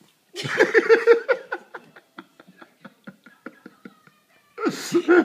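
A woman laughing in quick rhythmic bursts, trailing off into soft breathy giggles, then breaking into laughter again near the end.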